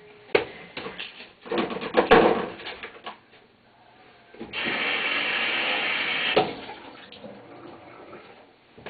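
A kitchen tap runs for about two seconds while raw chicken breast is rinsed under it. Before that come a few knocks and clatters of handling at the sink.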